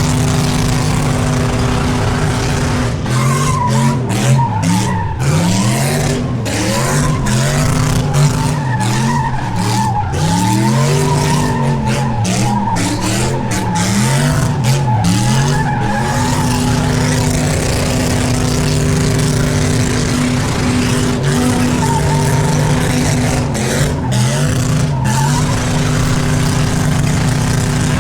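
V8 muscle car doing a burnout: the engine is held at high revs with the rear tyres spinning and squealing. From about 3 s in until about 16 s in, the revs rise and fall again and again, then the engine settles back to a steady high rev.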